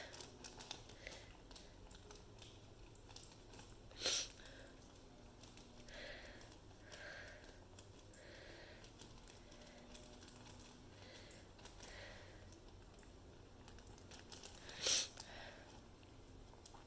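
Dog licking at a plastic bag laid over paint: faint, irregular wet clicks and soft smacks, with two louder sharp sounds, one about four seconds in and one near the end.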